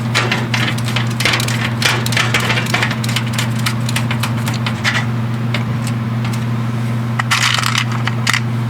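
LTT ratcheting screwdriver clicking as screws are backed out of a case fan in a steel PC case, with many small metal clicks, taps and scrapes, over a steady low hum.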